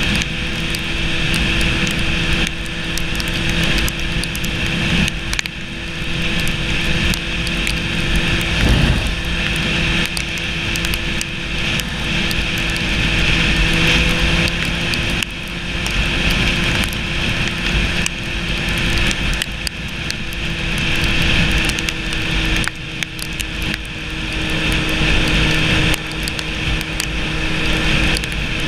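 Sport motorcycle cruising at a steady speed on a wet road: wind rush over the bike with the engine's even drone underneath.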